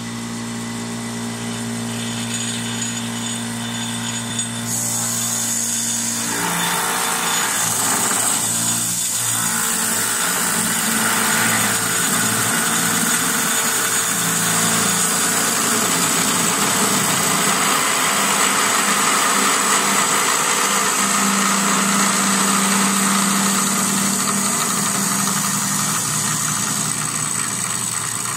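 CNC wood-turning lathe with its motor running steadily, then the cutter bites into the spinning wood blank about five seconds in and a continuous cutting hiss carries on as the furniture leg is turned.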